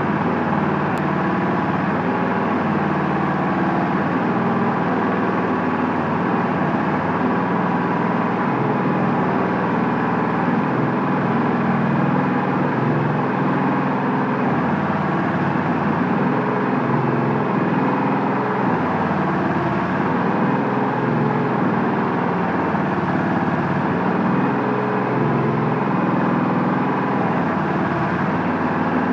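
Diesel engine of a hydraulic interlocking block-making machine running steadily and loudly under work.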